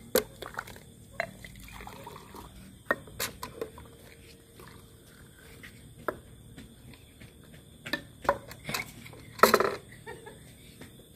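A metal ladle scooping and stirring milk soda (milk mixed with Sprite) in an aluminium bucket and pouring it into a steel tumbler, with liquid pouring and scattered clinks of metal on metal. A louder burst comes near the end.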